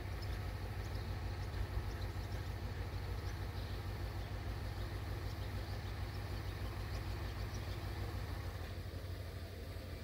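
Steady low engine rumble, with faint short high ticks scattered through.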